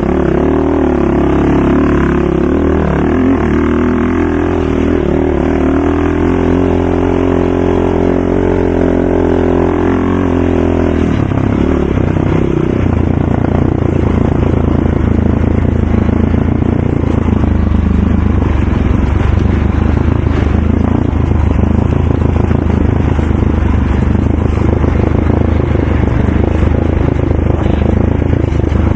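Racing ATV engines running loud and without a break. A steady, higher engine note in the first eleven seconds or so gives way to a lower, rougher one for the rest.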